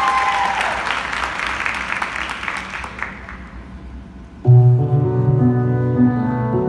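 Audience applause fading out over the first three seconds. About four and a half seconds in, the guard's recorded show music starts suddenly with long held notes over a strong low note.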